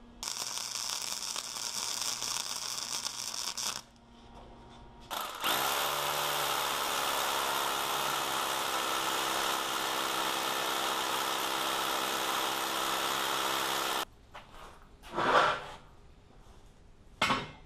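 Corded drill boring into a concrete floor with a masonry bit, drilling anchor holes. One short run of the tool at the start, then the motor spins up about five seconds in and runs steadily for about nine seconds before stopping. Two short, loud noises follow near the end.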